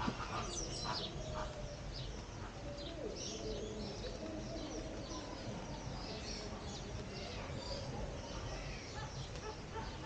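Many birds chirping and calling at once: a dense chatter of short, high chirps over a steady low background rumble.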